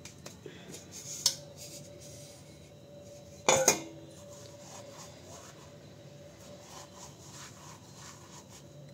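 Roasted cumin seeds being crushed by rubbing them between the palms over a plastic container, a soft rustle. There is a sharp click about a second in and a louder clattering knock about three and a half seconds in.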